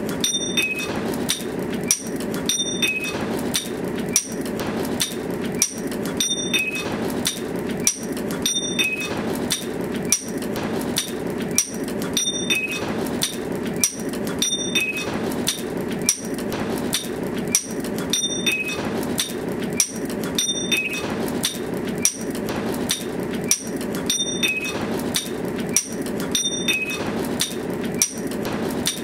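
Sharp knocks about once a second over a steady hum, in an even pattern that repeats about every six seconds.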